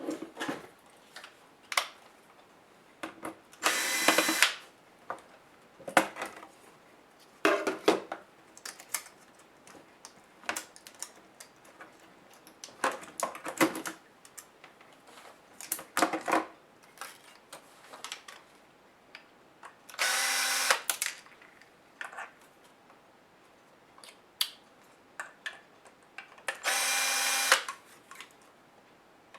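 A small electric screwdriver runs in three short bursts of about a second each, backing screws out of a laptop's case. Between the bursts come scattered clicks and light knocks of screws and plastic parts being handled.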